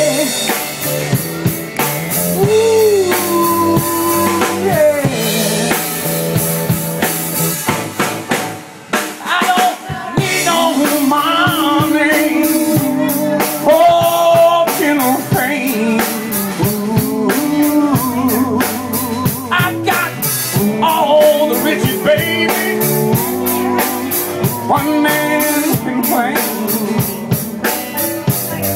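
A live band playing: electric and acoustic guitars and a drum kit, with a man singing into a microphone. The music drops back briefly about nine seconds in.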